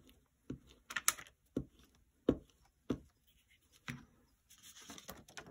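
Hands working a glue stick over folded paper on a cutting mat: about seven scattered sharp taps and knocks, then paper rustling near the end as the sheet is smoothed flat.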